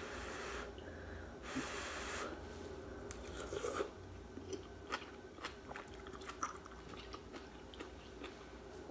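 A person eating soup: two short slurps in the first couple of seconds, then chewing with small scattered clicks, including chopsticks touching a ceramic bowl near the end.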